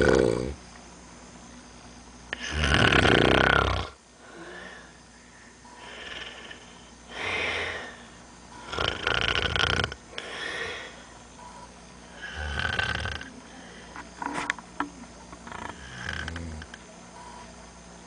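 A man snoring: about half a dozen rough, rasping snores at uneven intervals of two to four seconds, the longest and loudest a couple of seconds in, with softer breaths between them.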